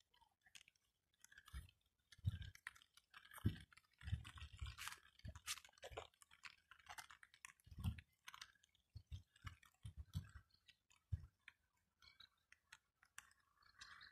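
Faint, irregular clicks and soft low thumps: handling noise of a hand-held phone on a gimbal and footsteps while walking.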